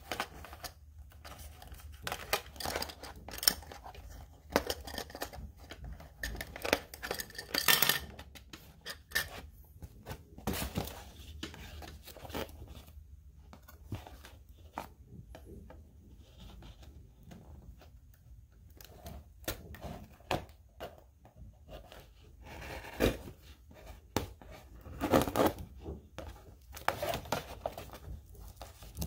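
String ties and clear tape on a cardboard packaging insert being snipped with a small blade and pulled away, with irregular snips, tearing and cardboard rustling. The louder tearing spells come a little over a quarter of the way in and again over the last few seconds.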